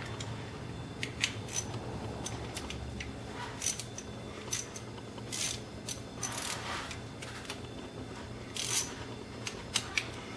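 Irregular light metallic clicks and clinks of an 8mm socket and small steel bolts being handled on an open Cummins 24-valve cylinder head as the injector retaining bolts come out, over a steady low hum.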